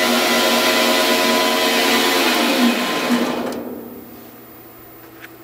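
Grizzly G0602 10x22 metal lathe running with a steady motor and gear whine. About two and a half seconds in it is shut off and spins down, the whine falling in pitch and fading away within about a second and a half.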